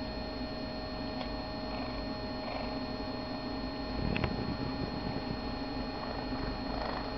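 Steady electrical hum, with a few faint, short high squeaks from newborn kittens and a single click and soft thump about four seconds in.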